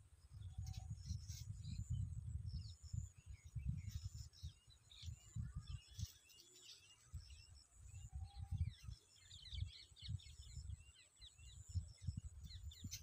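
Wind buffeting the microphone in uneven gusts, with small birds chirping and twittering in the background; the twittering is thickest a little after the middle.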